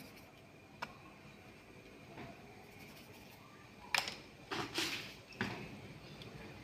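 Quiet kitchen handling noises: a faint click about a second in, then a sharp click and a few short knocks and rustles between about four and five and a half seconds in.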